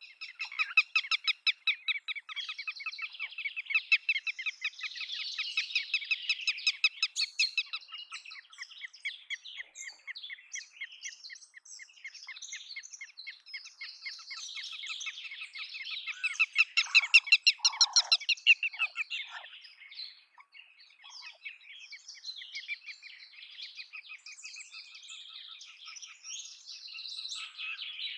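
Red-wattled lapwing calling: fast runs of sharp, repeated high notes. They are loudest in two long bursts, one starting about a second in and one about two-thirds of the way through, with scattered softer notes between them and towards the end.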